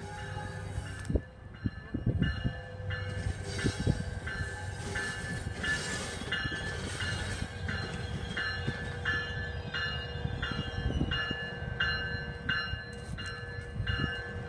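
Passenger train locomotive approaching and passing, its bell ringing steadily about twice a second over the low rumble of the engine and wheels.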